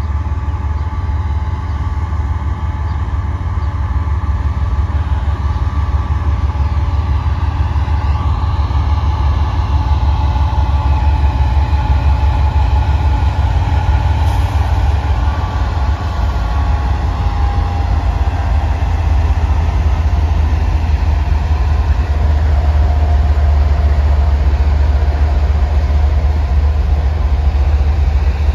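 EMD GP38-2 diesel locomotive's 16-cylinder two-stroke engine running, a steady deep rumble with a faint whine that wavers in pitch. It grows gradually louder over the first ten seconds or so, then holds.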